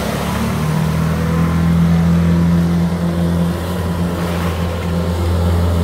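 Personal watercraft engine running steadily at speed, with water rushing and spraying under the hull. The engine note strengthens about half a second in.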